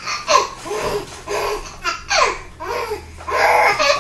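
Baby laughing hard in a string of short peals, each sliding down in pitch.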